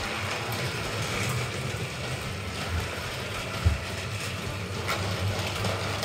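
Battery-powered motorised toy train engines running on plastic track, their small motors and gears whirring and rattling steadily. A single sharp knock comes about three and a half seconds in.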